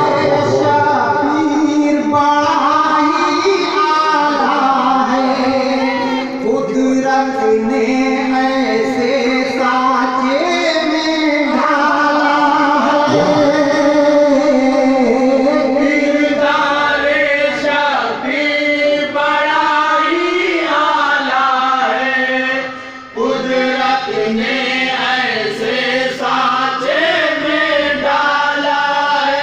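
A man's voice singing a devotional Islamic kalam into a microphone, in long held melodic phrases, with a short break about three-quarters of the way through.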